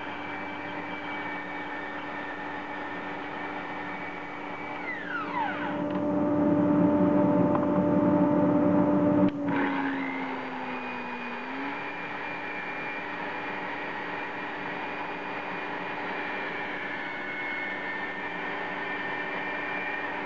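Mafell Z5EC portable bandsaw's 2250 W electric motor running with its blade in timber. About five seconds in the sound gets louder and the motor's pitch falls as the blade takes the load of the cut; a sharp click near the middle ends this, and the motor picks up again and runs on steadily.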